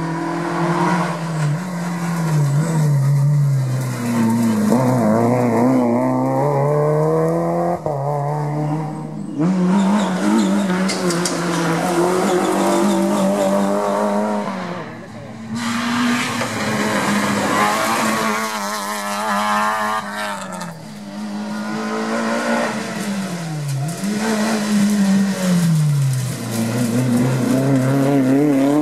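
Rally car engines at full throttle as several cars pass in turn on a tarmac stage, the revs climbing and dropping again and again through gear changes and braking. The sound breaks off abruptly twice as one car gives way to the next.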